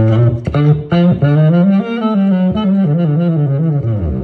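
Selmer Varitone tenor saxophone played through its Varitone amplifier with the effects turned up far too high: a phrase of connected notes with a deep doubled tone running beneath them, sounding overdone and distorted.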